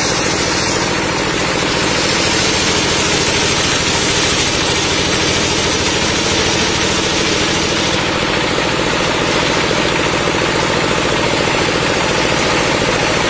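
Table-mounted circular saw ripping a log slab lengthwise into a beam. The blade cuts steadily through the wood over the constant running of the machine driving it.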